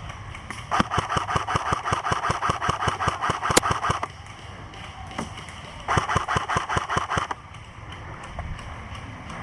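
Airsoft rifle firing two long full-auto bursts: a rapid, even run of shots over a steady whine, the first burst lasting about three seconds and the second, a couple of seconds later, about a second and a half.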